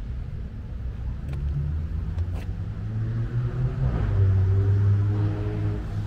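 Low rumble of road traffic with a heavy vehicle passing, its engine growing loudest about two-thirds of the way through and then easing off.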